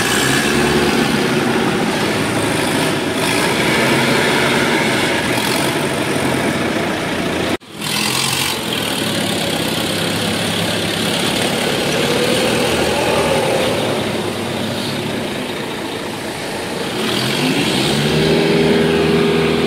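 Forklift engine running as the forklift moves loaded pallets around the yard. Near the end the engine revs up and holds at a higher, steady pitch.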